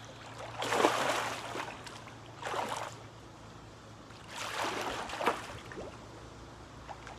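Swimming-pool water splashing as a swimmer moves and goes under, in three bursts: one about a second in, a short one near the middle, and a longer one about two-thirds through.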